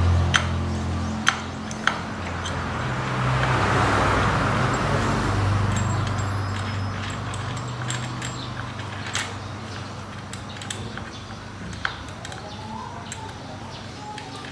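Scattered sharp clicks and light taps of a motorcycle swingarm spool and its bolt being handled and unscrewed by hand, over a low steady hum that swells about four seconds in and then fades.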